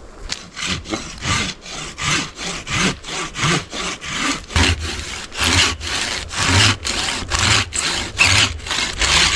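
Hand saw cutting through a piece of fatwood with steady back-and-forth strokes, about two a second, growing louder.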